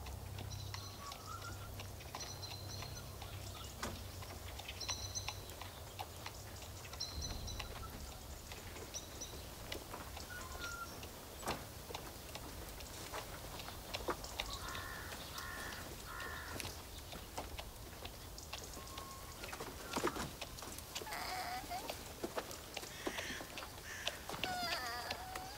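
Outdoor village ambience: small birds chirping in short repeated high notes, scattered knocks of footsteps and hooves on the ground, and animal calls in the last few seconds.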